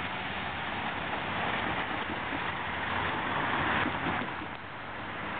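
Double-stack freight train rolling past a grade crossing: a steady rushing of wheels on rail, a little louder about three seconds in and easing off near the end.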